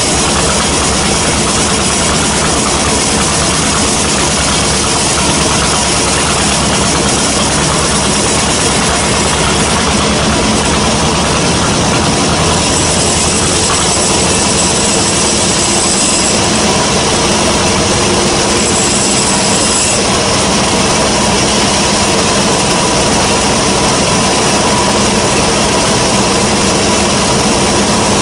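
Band sawmill running with a steady, loud machine drone as it saws a gmelina log. A higher whine comes in twice around the middle.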